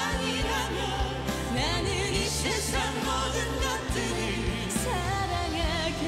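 Male and female voices singing a Korean pop ballad together over band accompaniment, the voices held on long notes with vibrato.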